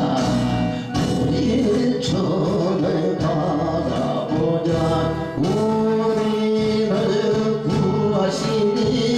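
A Korean gospel worship song: a singing voice holding long notes over instrumental accompaniment with a steady beat.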